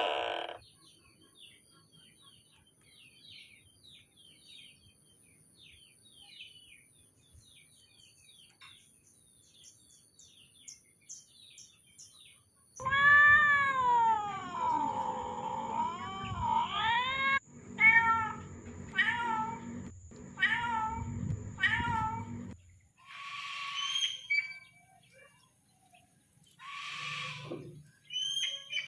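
Animal calls: faint, quick chirps for the first half, then a series of loud pitched calls that glide down and up, breaking into shorter repeated calls about two a second.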